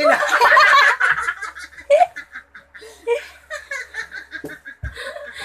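A man and a woman laughing hard together: a loud burst of laughter at first, settling into rapid, rhythmic laughing pulses.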